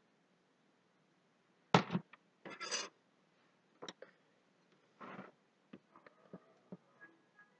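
Handling sounds at a worktop: a sharp knock about two seconds in, as a plastic measuring jug is set down on the wooden counter, followed by brief rubbing and scraping and a few light clicks as a spatula is taken up and drawn through soap batter in a plastic mold.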